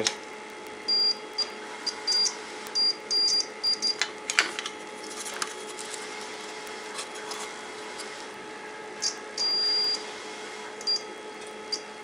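Digital multimeter in continuity mode giving short, high beeps as its probes touch contacts on the circuit board and USB lead. There are several quick beeps in the first few seconds, one longer beep a little after nine seconds and another short one near eleven; each beep signals a closed connection between the probed points. Light handling clicks come in around four seconds.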